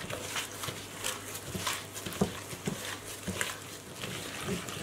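Gloved hand kneading a cookie-dough mix of butter, sugar and egg in a glass bowl: irregular short squelching sounds, a few each second, as the butter and sugar are worked together until the sugar softens.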